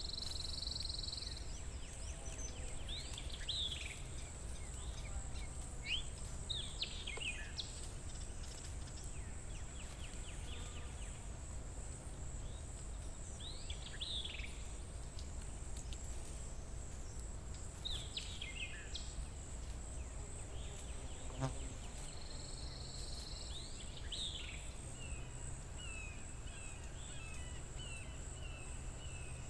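Forest ambience: birds give short chirping calls every few seconds, with a quick run of repeated chirps near the end. Under them run a steady high-pitched drone and a low rumble.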